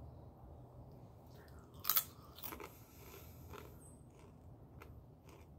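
A crisp bite into a Power Crunch wafer protein bar about two seconds in, then a few fainter crunches as it is chewed.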